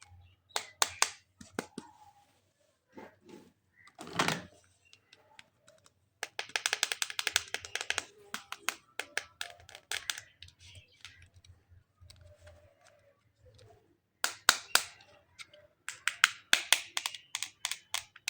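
Sharp plastic clicks and taps from handling toys and their packaging, with a fast run of clicking about six seconds in and more bursts of clicks near the end.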